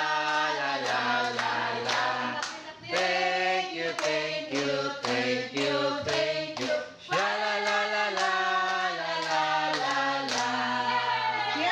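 A group of women singing together, with one woman's voice leading into a microphone, and steady rhythmic hand clapping on the beat.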